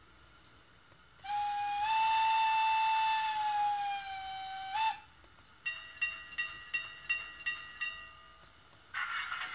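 Steam whistle of a BR 91 sound project played by a LokSound Micro 5.0 decoder through a model locomotive's tiny speaker. One steady blast starts about a second in and lasts about three and a half seconds. A softer rhythmic pulsing sound with steady tones follows, and a hiss starts near the end.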